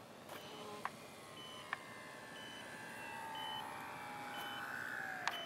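Radio-controlled Starship Enterprise model aircraft flying low past, its motor and propeller whine growing louder and then falling in pitch near the end as it goes by. Short high beeps repeat about once a second.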